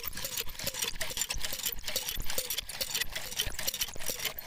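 A thick stream of water gushing from a pipe and splashing into a plastic bucket as it fills, with a continuous crackly spatter.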